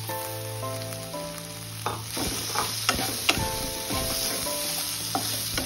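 Spatula stirring mashed boiled potato into sizzling onion-tomato masala in a nonstick frying pan. From about two seconds in, the spatula clicks and scrapes against the pan several times.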